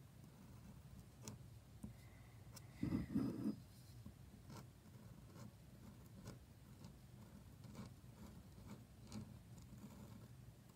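Faint scratching and ticking of a flexible steel pointed nib, a Leonard Principal fitted in a Jinhao fountain pen, writing calligraphy strokes on paper. A brief, louder low rustle comes about three seconds in.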